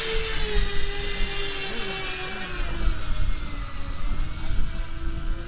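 Twin electric motors and propellers of a Hobbyking C-47 RC plane whining steadily at takeoff power as it rolls away across the grass. The pitch sags slightly a few seconds in and climbs again near the end. Gusty wind rumbles on the microphone.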